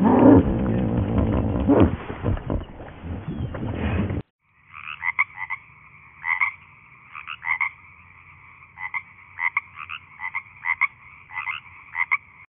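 A loud, deep animal-like rumble lasts about four seconds and cuts off suddenly. Then a frog gives short two-tone chirping calls, repeated at irregular intervals.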